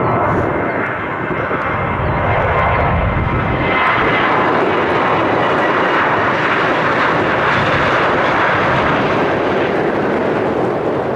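Jet airliner's engines at takeoff power on a departure roll: a loud, steady jet noise that builds over the first few seconds and then holds.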